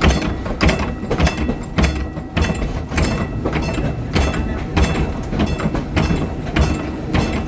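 Trolley car running along the track with a regular sharp clack about every 0.6 seconds over the rumble of the car.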